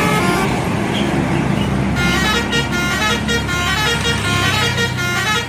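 A bus's telolet horn playing a fast melody of stepping tones over the bus's engine, the horn tune starting about two seconds in.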